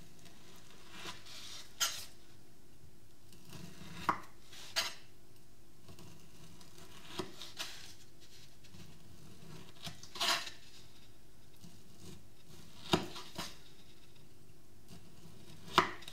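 Kitchen knife slicing strips of peel off a kiwi on a wooden cutting board, each downward cut ending in a short, sharp tap of the blade against the board, about nine taps at uneven intervals of one to three seconds.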